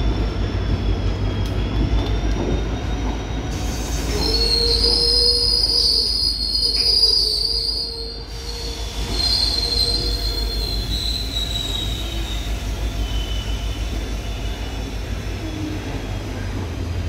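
Passenger coaches of a departing train rolling slowly past, their wheels rumbling steadily on the rails. High-pitched wheel squeal rises about four seconds in and fades after about ten seconds, with a faint squeal again a little later.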